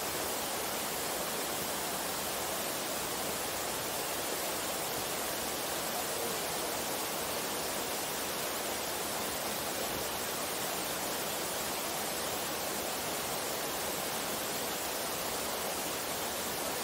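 Steady rushing of water from the Vallesinella waterfall and the mountain stream tumbling over rocks below it: an even, hiss-like roar with no breaks or changes.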